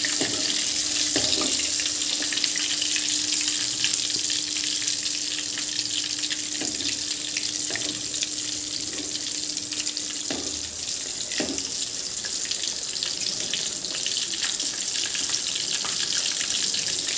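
Hot oil sizzling steadily as prawn-masala-coated egg balls deep-fry in a metal pan. A few light knocks come from the metal ladle against the pan, and a faint steady hum stops about ten seconds in.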